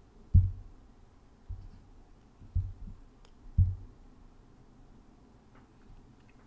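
Four soft, low thumps about a second apart, then faint room tone.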